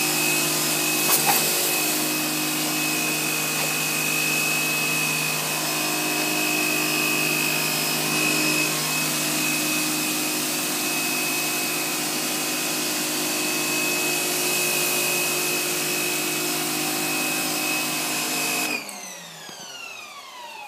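Pressure washer running steadily with a high whine, its spray hitting concrete, with a brief click about a second in. Near the end it shuts off and its whine falls in pitch as it winds down.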